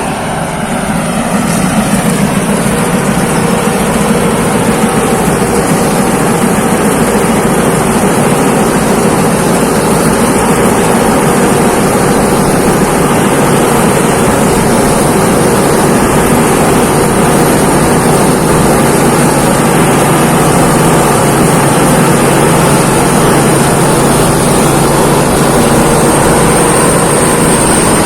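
Thai Seng Yont rice combine harvester running steadily while it harvests, its engine and threshing machinery making a loud continuous drone with a faint high whine.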